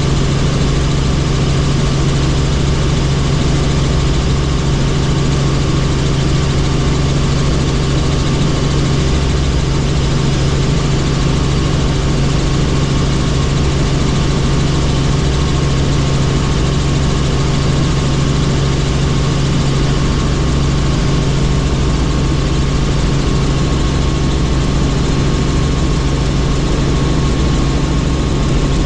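Helicopter in flight: loud, steady engine and rotor noise with a strong low hum and a few held higher tones, unchanging throughout.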